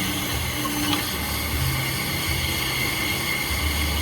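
Car engine running in gear, spinning the bare front hub and brake disc, while a knife-sharpening stone is held against the disc and grinds it down with a steady hiss, a trickle of water running onto it. The disc is being resurfaced to remove the lip that made the new brake pads squeal.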